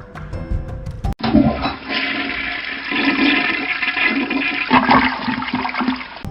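Toilet flushing: a loud rush of water lasting about five seconds, starting about a second in after a short stretch of background music.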